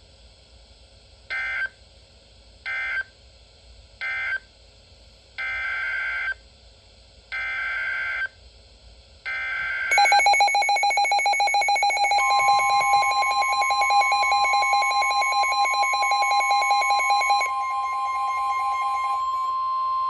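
NOAA Weather Radio alert coming through a Midland S.A.M.E. weather alert radio: three short screechy end-of-message data bursts, then three longer SAME header bursts announcing the next warning. About ten seconds in, the radio's own pulsing alarm beep starts, and a couple of seconds later the steady 1050 Hz warning alarm tone joins it; the beeping fades away near the end while the tone keeps sounding.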